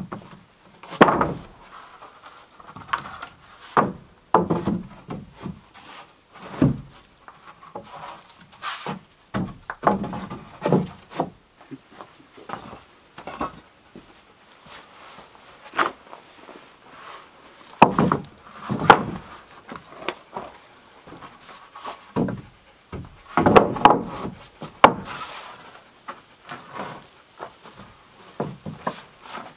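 Wooden deck boards being set down and shifted into place on porch floor joists: irregular wooden knocks and clatters, with scraping as boards slide against one another.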